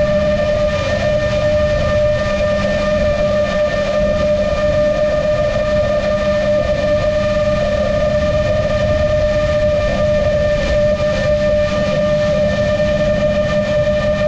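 Onboard sound of a 7-inch long-range FPV quadcopter (GepRC MOZ-7) in steady cruise: the motors and propellers hold one constant whining pitch, over a rush of wind and airflow.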